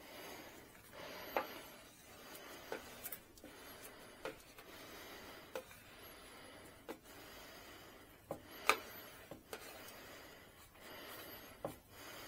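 Rubbing and rustling of a large vinyl decal sheet being handled, with several sharp clicks and crinkles. Slow, close breathing is heard through it.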